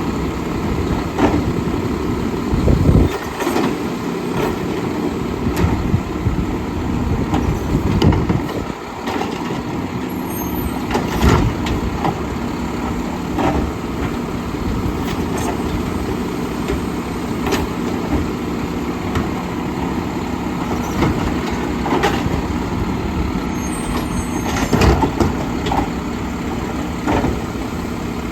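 Mack LEU side-loader garbage truck's diesel engine running steadily, with repeated knocks and clanks at irregular moments, the loudest about three, eight, eleven and twenty-five seconds in.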